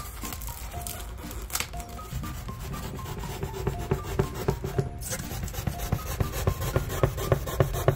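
Utility knife sawing through a styrofoam insulation panel in a run of quick rasping strokes that start a couple of seconds in and grow louder toward the end.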